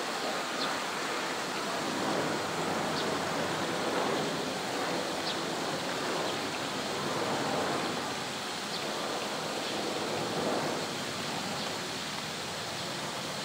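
Steady rushing noise like running water, with a few faint, short high ticks scattered through it.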